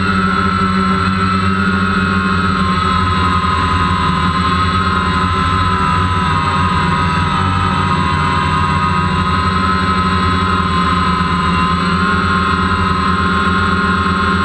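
DJI Phantom quadcopter's electric motors and propellers whining steadily in a hover, heard from the GoPro mounted on the drone. The several tones drift slightly in pitch as the motors adjust.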